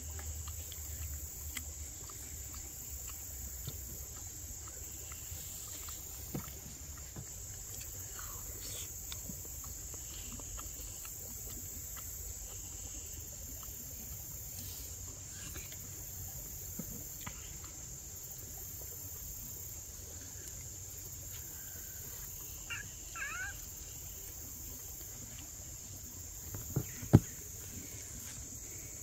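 Steady high-pitched insect chorus, with a few faint bird chirps and one sharp knock near the end.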